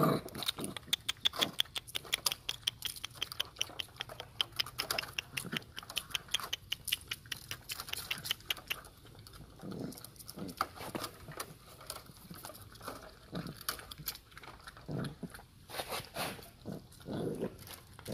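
Puppies licking yogurt from plastic cups: a fast run of wet licking smacks, several a second, for the first half, then fewer, scattered licks and mouth sounds.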